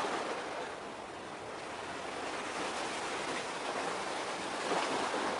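Sea water washing against the shore: a steady rushing wash that swells again near the end.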